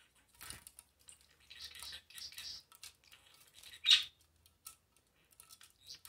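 Budgie at its water bath dish: a run of small clicks, patters and short high bursts, with one much louder sharp sound about four seconds in.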